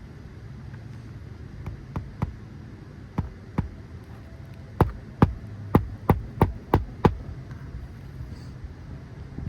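Hammer driving roofing nails into asphalt shingles: a few light taps, then a quick run of seven sharper blows, about three a second, over a steady low hum.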